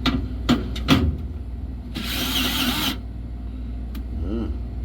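Vessel 220USB-P1 electric screwdriver on medium speed, run for about a second to drive a screw that it struggles with, after a few sharp clicks of handling. A steady low hum lies underneath.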